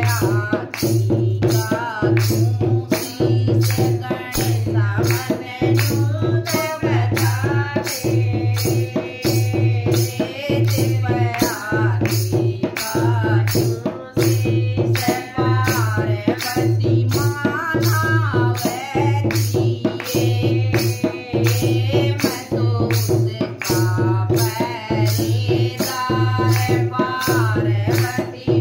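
A woman singing a devotional bhajan, keeping time on wooden kartal clappers, with sharp clicks and jingles, over a steady, even drum beat.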